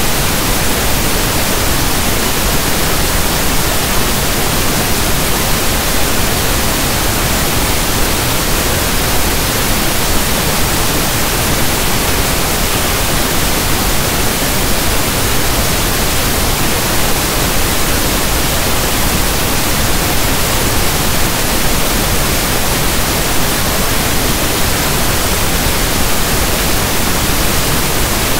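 Steady synthesized pink noise: an even, soft static hiss like a radio not tuned to a station, spread from low to high pitches at a constant level throughout.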